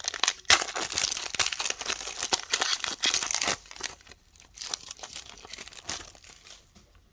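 A trading card pack wrapper being torn open and crinkled by hand: dense crackling for about three and a half seconds, then scattered crinkles that die away.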